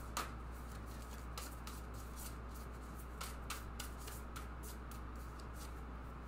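A deck of tarot cards being shuffled by hand, overhand: soft, irregular clicks and slides of cards dropping from one hand to the other.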